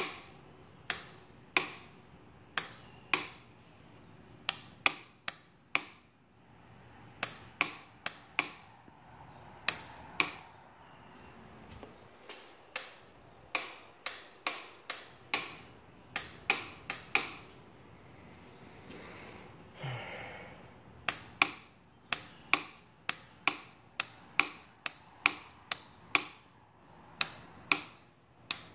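Starter solenoid on a 2015 Yamaha Raptor 700SE ATV clicking each time the starter is pressed, without the engine cranking. Dozens of sharp single clicks come at irregular intervals, sometimes in quick runs of one or two a second.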